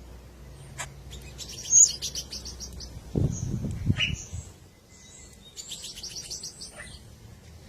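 White-rumped shama (murai batu) chirping in two bursts of rapid, high repeated notes, about a second in and again near six seconds, with a short falling note in between. Low muffled thuds come just after the midpoint.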